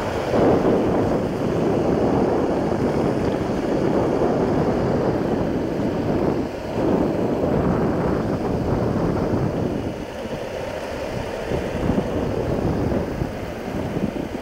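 Wind rushing and buffeting the microphone during a fast downhill skateboard ride, over the steady roll of skateboard wheels on asphalt.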